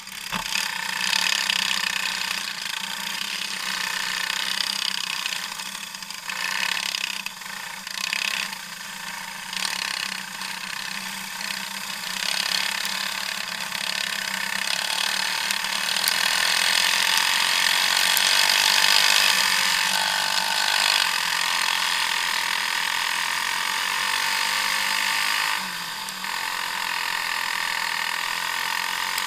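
Racing kart engines running hard, heard from a camera on the kart, with a high buzzing whine and hiss. The sound swells about a second in as the karts pull away, then surges and eases several times as the throttle comes on and off through the turns.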